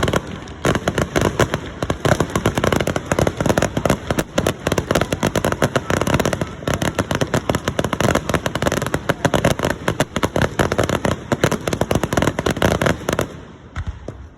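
Fireworks going off in a dense, rapid barrage of bangs and crackles, packed together with hardly a gap, dying away about a second before the end.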